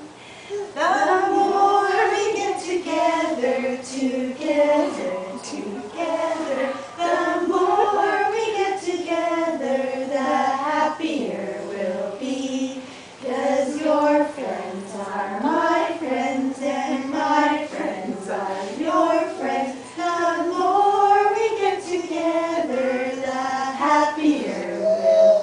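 A group of adults, mostly women, singing a children's song together in unison with no accompaniment, with a short break about halfway through.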